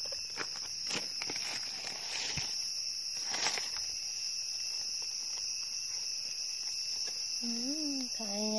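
Steady high-pitched drone of a forest insect chorus, with rustling and snapping of steps in dry leaf litter during the first few seconds. A brief voice-like sound near the end.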